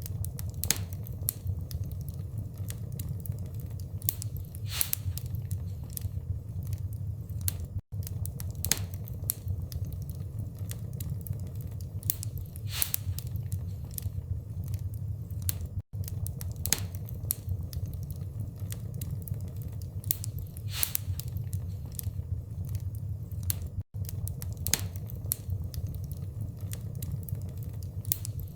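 Log fire crackling, with scattered sharp pops over a steady low rumble. The sound cuts out for an instant about every eight seconds, where a short recording is looped.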